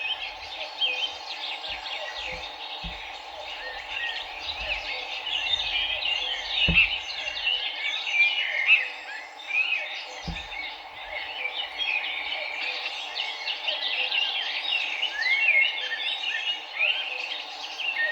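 A dense chorus of many birds chirping and trilling at once over the steady rush of a flowing river. Two low thumps break in, about seven and ten seconds in.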